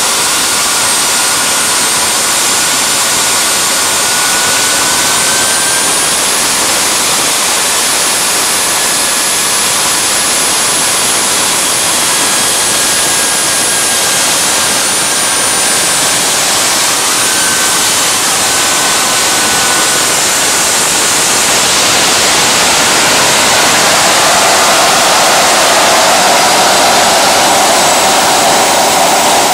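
Small turbine jet engine running: a loud, steady rushing noise with thin high whistling whines that shift upward about six seconds in. From about twenty seconds in a lower rushing band grows and the whole sound gets louder.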